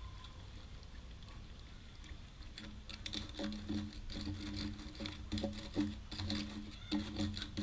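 Metal bike chain being worked and scrubbed in a tub of kerosene. From about two and a half seconds in, its links clatter and click irregularly, with a low hum coming and going alongside.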